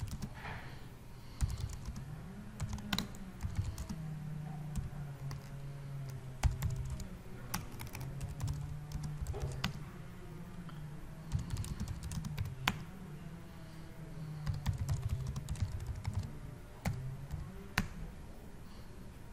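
Typing on a computer keyboard: irregular runs of key clicks with short pauses between, over a low background hum.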